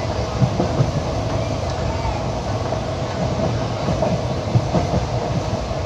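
Train noise of an Indian Railways ICF passenger coach: a steady rumble with a ringing hum and a few sharp knocks.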